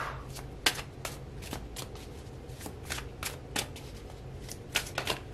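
A deck of tarot cards being shuffled by hand: irregular light snaps and taps of the cards, a sharp one about a second in and a quick cluster near the end.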